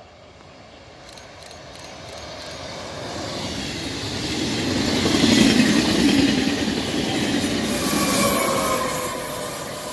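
Trenitalia regional push-pull train with an E.464 electric locomotive pushing at the rear, approaching and passing: a rush of wheels on rail that builds to its loudest about five seconds in. Near the end, as the locomotive goes by, steady whining tones and a high hiss come in.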